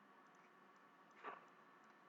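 Near silence: faint room tone, with one brief soft sound about a second in.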